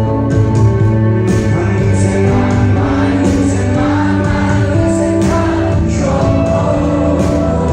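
A rock band playing live with sung vocals: held pitched notes over a steady beat, loud and even throughout.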